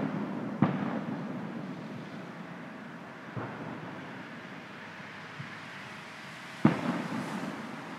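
Aerial firework shells bursting: two loud bangs, one about half a second in and one near the end, with two fainter bangs between, each followed by a rolling echo.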